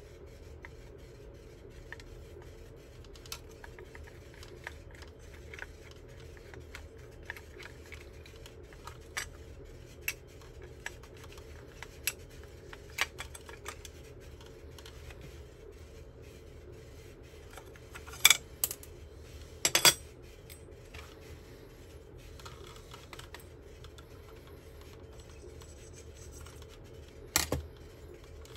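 Small tools and parts handled on a workbench during electronics repair work: scattered light clicks, taps and scrapes. A few sharper clacks come in a cluster about two-thirds of the way through and again near the end, over a faint steady low hum.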